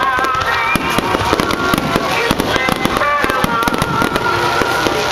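A fireworks display with rapid, overlapping bangs and crackles throughout. Music with a melody plays underneath.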